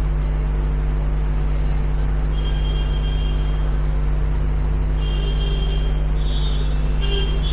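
Steady low electrical hum with hiss, typical of 50 Hz mains hum in a microphone and sound system, with faint thin high tones coming and going in the second half.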